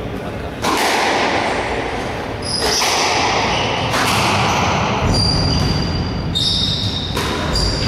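Squash rally: a series of sharp hits about one to two seconds apart as the ball is struck by rackets and strikes the walls, with shoes squeaking high on the wooden court floor between shots.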